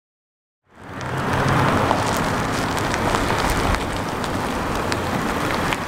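Silence for under a second, then a small SUV rolling slowly across an asphalt parking lot: a steady noise of engine and tyres with a low rumble and scattered light clicks.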